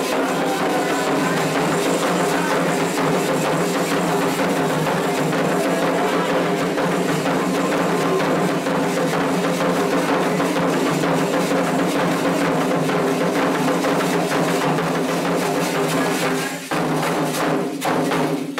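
Candomblé ceremonial drumming on atabaque hand drums, a dense, steady rhythm of strokes that breaks briefly near the end and closes with a few last beats.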